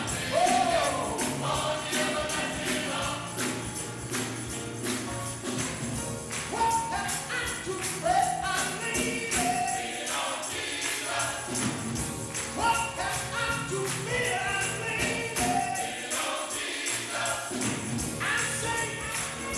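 Gospel choir singing with music accompaniment, a jingling tambourine keeping a steady beat.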